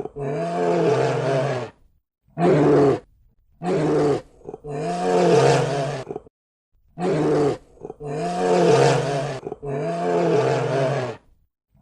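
A large animal's loud calls, about seven in a row, each half a second to two seconds long and rising then falling in pitch, with abrupt silent gaps between them.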